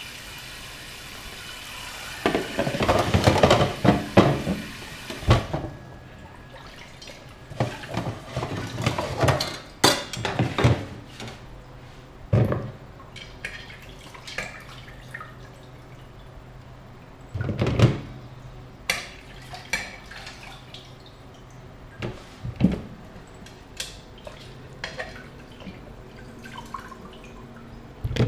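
Kitchen tap running into a steel pot as raw chicken pieces are rinsed by hand, shut off about five seconds in. After that, splashing, dripping and knocks of the steel pot and plastic basin as the wet pieces are handled and moved.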